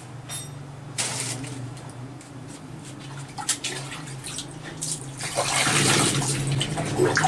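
Water splashing and pouring as a tiled squat toilet is washed by hand, with a short splash about a second in and a longer, louder pour from about five seconds in.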